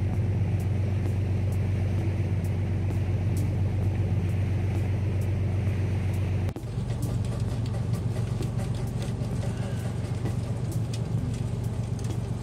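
Fishing boat's engine droning steadily with a low hum. About six and a half seconds in the sound breaks off briefly and resumes with the same drone plus scattered crackle.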